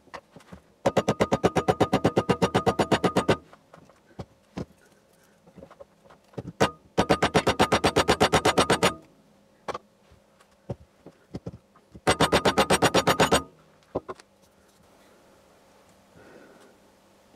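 Three runs of rapid, evenly spaced mechanical clicking, about ten clicks a second, each lasting two to three seconds, with scattered single knocks in between.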